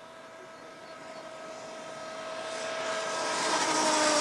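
Electric racing motorcycle's drive whining as it approaches and passes close by. The steady whine and a rush of tyre and wind noise build and are loudest near the end, where the whine's pitch drops slightly as the bike goes past.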